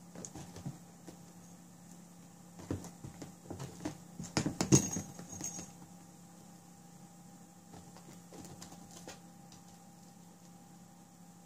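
Kittens climbing and pawing at a fabric-covered cat box: scattered scratches, light knocks and rattles from claws and paws. The sounds are busiest and loudest about four to five seconds in, with a few fainter ones around eight to nine seconds.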